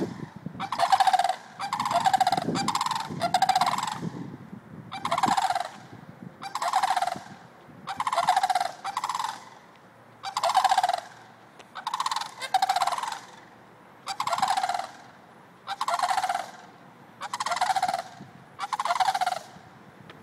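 Two adult sandhill cranes giving loud, rolling, rattling calls over and over, roughly one a second, the two birds' calls sometimes overlapping.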